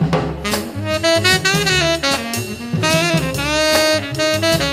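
Background jazz music: a saxophone melody over drums.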